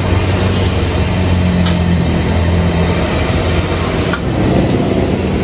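Stir-frying in a steel wok over a gas stove: a steady roar of the burner and sizzling food, with a couple of clinks of the metal ladle against the wok.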